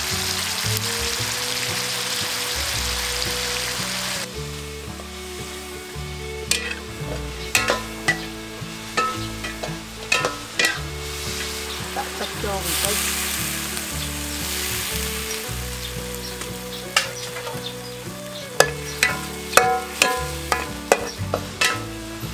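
Chicken pieces and chili frying in oil in a wok, sizzling loudly for about four seconds, then quieter frying as a spatula is stirred through the food, scraping and clacking against the wok again and again.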